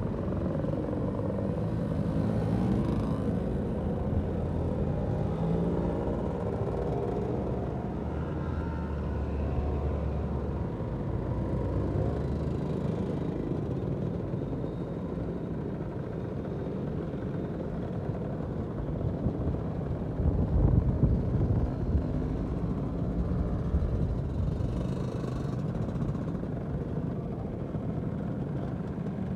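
A column of classic two-stroke Lambretta scooters running at low speed and riding past one after another. A steady mix of small engines, with one passing louder about two-thirds of the way through.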